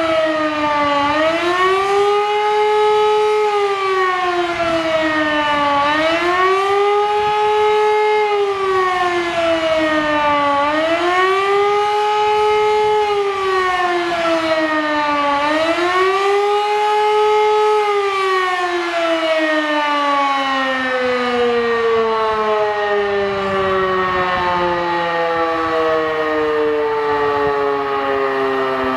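Civil defence siren on a town hall roof sounding the wailing warning signal of a test alarm, its pitch rising and falling about every five seconds. After about 18 seconds it stops wailing and winds down in one long falling glide.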